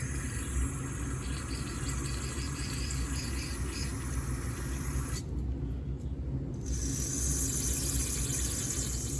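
Hissing spray used to clean varnished carburetor parts: a long spray, a break of about a second and a half about five seconds in, then spraying again, over a steady low hum.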